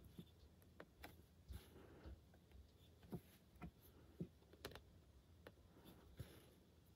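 Faint, irregular soft taps and brushing of a cross-stitch needle being pushed through Aida fabric, with the thread drawn after it.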